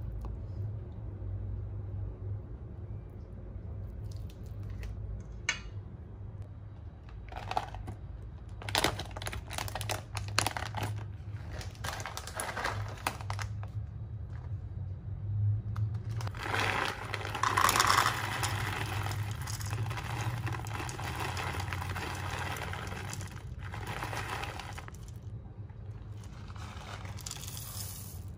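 Crinkling and rustling handling noise that comes and goes in irregular stretches, loudest about two-thirds of the way through, over a steady low hum.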